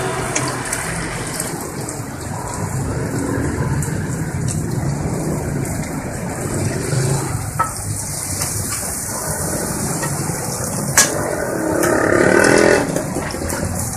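Street food stall ambience: a steady hiss over a low rumble. There is a sharp click about eleven seconds in, and a brief louder burst of noise just after.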